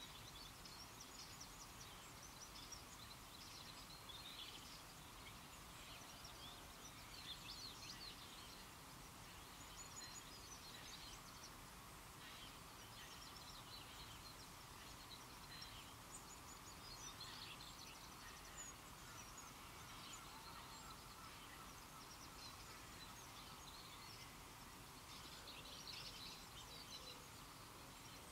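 Faint open-air ambience: scattered small bird calls, short high chirps and twitters, recurring throughout over a steady low hiss.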